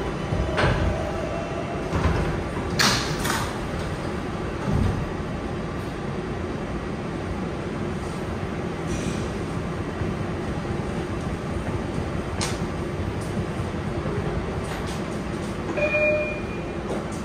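R142A subway train running: a steady low rumble of wheels and motors, with a few sharp clacks in the first few seconds and another about three-quarters of the way through. A short high tone sounds near the end.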